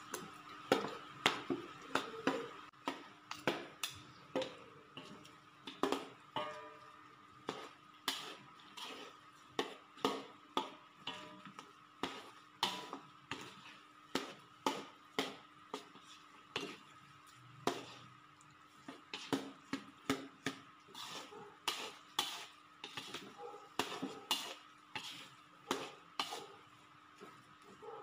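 Metal spatula and perforated ladle scraping and knocking against a steel wok while stirring thick, sticky glutinous rice in palm-sugar syrup, a stroke roughly every half second to second.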